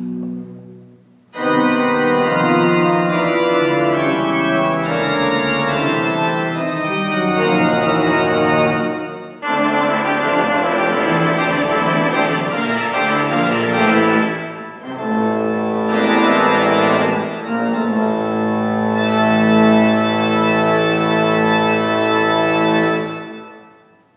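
Church pipe organ playing loud full chords in three phrases, the closing passage of the piece; the last chord is released near the end and dies away.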